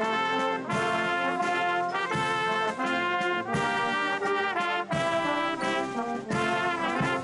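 Military brass band playing slow held chords that change about once a second, with brief breaks between phrases.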